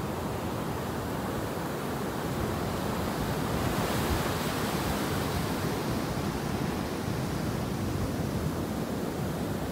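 Surf breaking and washing up a sandy beach: a steady rush that swells a little about four seconds in, then eases.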